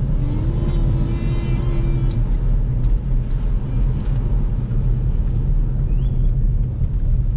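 Steady low rumble of a car in motion, engine and road noise, with a faint held tone during the first two seconds and a few brief high chirps near the end.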